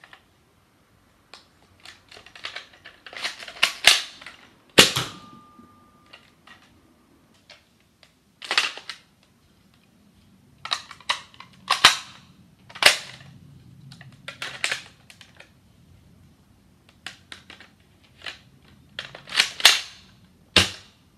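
Sharp plastic clacks and snaps of a Nerf Shellstrike blaster being handled and reloaded, coming in irregular clusters with a loud clack about five seconds in and another near the end.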